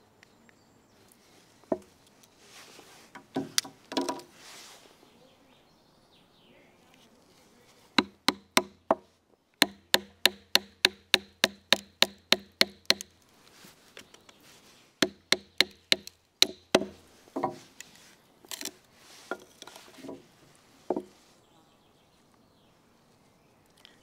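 A wooden baton strikes the spine of a Victorinox Huntsman Swiss Army knife blade to split a hazel log. The sharp knocks ring; they come in a rapid run of about four a second, then in a shorter run and a few slower single strikes.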